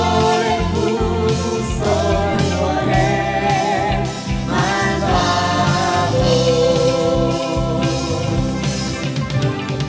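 Mixed church choir singing a Spanish-language hymn in sustained, gently wavering notes over keyboard accompaniment.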